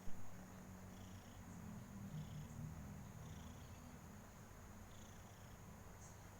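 Domestic cat purring steadily, a low pulsing rumble, the sound of a contented cat. There is a short bump right at the start.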